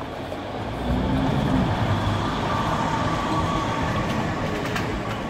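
Articulated electric trolleybus driving past close by: a low rumble that swells about a second in, with a faint electric whine.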